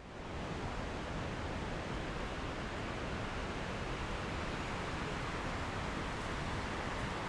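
Steady, even rushing noise that swells in over the first half second and then holds level.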